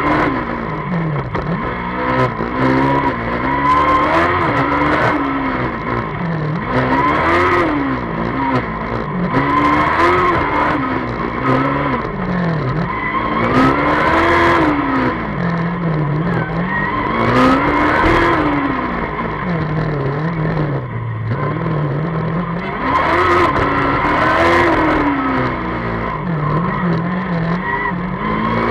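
Formula Student race car heard from on board, its engine revving up and dropping back again and again as it accelerates and brakes between the corners of a cone course.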